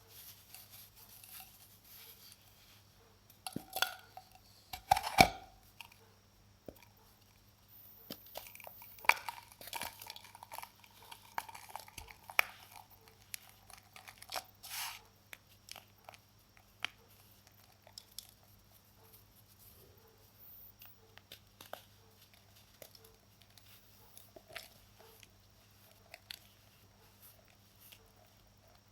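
Baking soda being crumbled by hand: irregular crunches and crackles, loudest about four to five seconds in.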